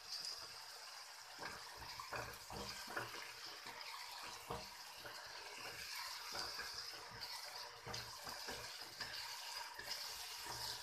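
Thick masala gravy sizzling in a kadhai on the gas flame as a spatula stirs green peas through it, with light, irregular scrapes and taps of the spatula on the pan.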